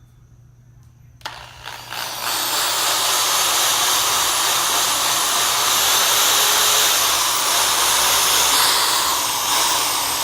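Power drill boring the first mounting hole through a Mustang chin spoiler into the front bumper cover: it starts about a second in and runs loud and steady, with a brief dip near the end.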